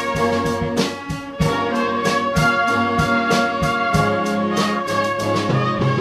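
Community concert band playing: brass hold chords over percussion strikes that come about twice a second.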